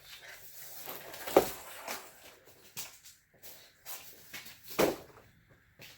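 Packaging and saw parts being handled during unboxing: rustling and scraping with two louder knocks, one about a second and a half in and one near the end.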